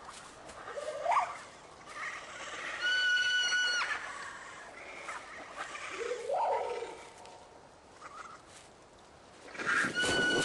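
Bird-like calls of Mononykus, small feathered dinosaurs, as voiced by the programme's sound design: short rising squawks and a held whistling cry, about three seconds in and again near the end.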